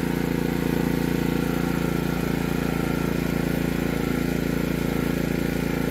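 Heomaito HMT3500iD dual-fuel inverter generator running on propane at a steady, even speed during its first start.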